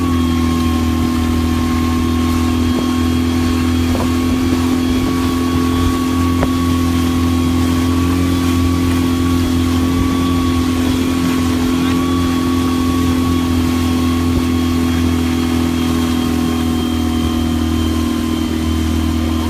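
Yamaha 8 hp outboard motor running steadily at constant throttle, its pitch unchanging, while towing a person on an inflatable board.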